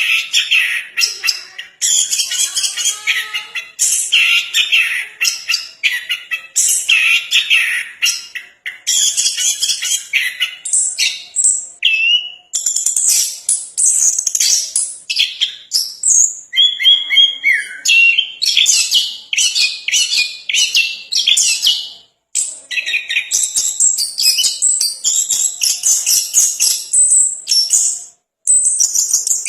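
Chestnut-capped thrush (anis kembang) singing a fast, varied song of tightly packed chirped and whistled phrases, breaking off briefly twice in the latter half.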